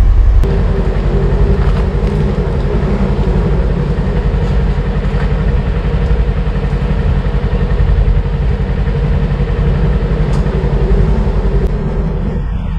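Polaris Ranger XP 1000 Northstar's twin-cylinder engine idling steadily.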